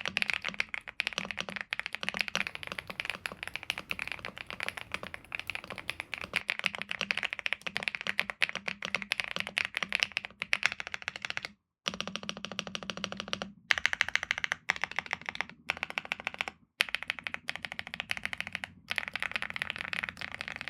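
Epomaker TH80 V2 gasket-mount mechanical keyboard with Creamy Jade switches being typed on quickly: a dense, steady stream of keystrokes with a soft, creamy sound. It stops dead twice for a moment before the typing resumes.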